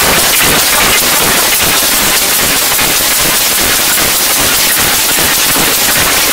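Loud, steady crackling static hiss with no music or voice in it.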